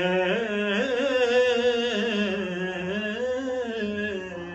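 A man singing an Urdu manqabat unaccompanied, drawing out one long, wavering, ornamented note without words, which grows softer toward the end.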